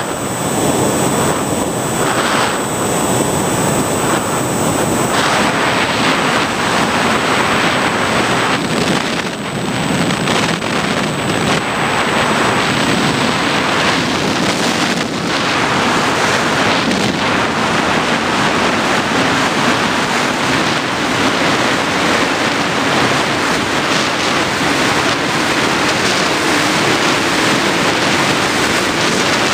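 Steady rushing of airflow over the onboard camera microphone of an FPV model aircraft in flight, mixed with the noise of its motor and propeller. A thin high whine sits over it for about the first half.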